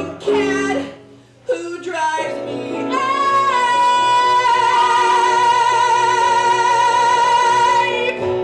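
A solo singer performing live: a few short sung phrases, a brief break about a second in, then one long high note held for about five seconds, its vibrato widening partway through.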